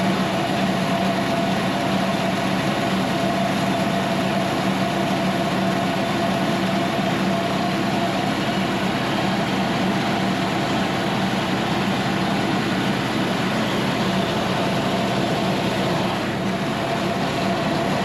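Sawmill's diesel engine running steadily with an even hum.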